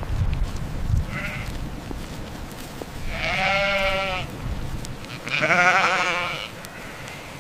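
Sheep bleating: two long, quavering bleats of about a second each in the second half, after a faint short one, over a low rumbling noise.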